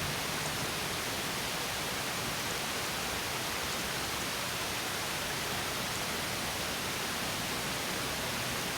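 Water of a small stream spilling over a mini waterfall, a steady even rush with no breaks.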